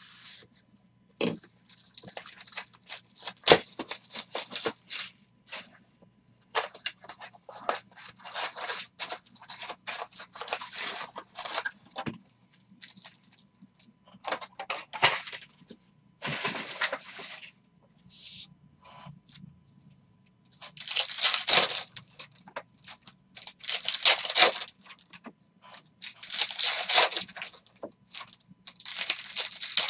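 Baseball card packs being opened by hand one after another: repeated bursts of foil wrappers ripping and crinkling, the longest and loudest in the second half. Near the start a blade cuts into the card box, with a sharp click a few seconds in.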